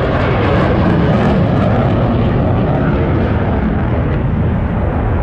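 Loud, steady aircraft engine noise from a light airplane in the air.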